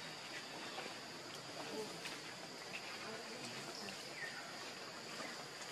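Steady high-pitched insect drone, with a few faint short chirps scattered through it.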